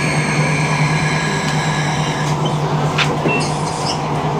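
Passenger train running, heard from inside the carriage: a steady low hum and rolling noise, with a high-pitched whine that stops a little over halfway through. A sharp click comes near the end.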